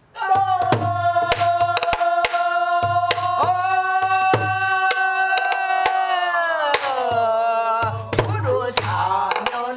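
A woman singing pansori in a full, wavering voice, holding one long note that slides down about six seconds in before the phrase goes on. She accompanies herself on a buk barrel drum: sharp stick strokes on the rim and body and deep palm thuds on the drumhead.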